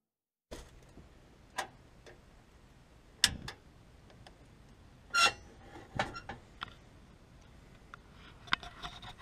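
Scattered clicks and knocks, one with a short metallic ring, from a kettle and a portable gas camping stove being handled.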